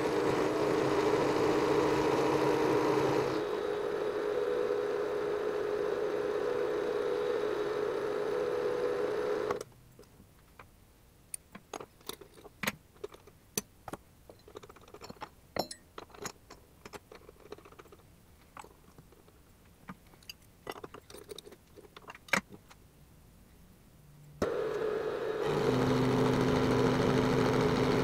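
Benchtop milling machine running with its end mill cutting a slot in a metal disc; it shuts off about a third of the way in. Then come scattered light clicks and clinks of metal tools being handled, and near the end the mill starts up again and runs steadily.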